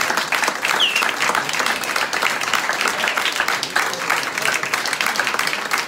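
Audience and band applauding, dense steady clapping, with a short high whistle about a second in.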